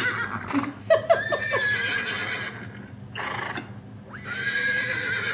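A horse whinnying: a wavering neigh about a second in and another near the end. Two sharp clicks sound about a second in.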